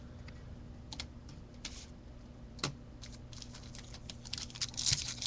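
Trading cards being handled: a few sparse light clicks and taps, then near the end the crinkling of a foil card pack wrapper as the next pack is taken up to be opened. A faint steady hum runs underneath.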